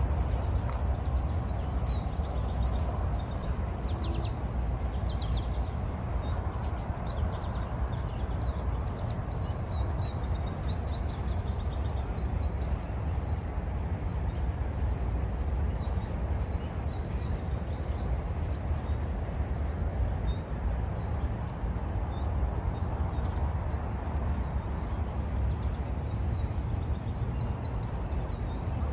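Outdoor park ambience: small birds chirping and trilling in quick runs of high notes, most of them in the first half, over a steady low rumble.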